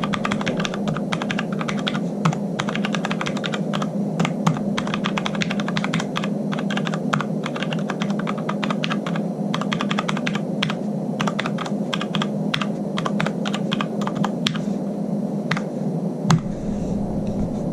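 Keys of a Magicforce numpad with Cherry MX Brown switches being typed on rapidly: a fast, dense patter of keystrokes that thins to a few separate presses near the end, with one louder stroke. A steady low hum runs underneath.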